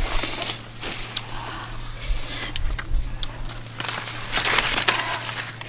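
Leaves and vines rustling and crackling as a melon is handled and pulled from among them, in irregular bursts, loudest about four and a half seconds in.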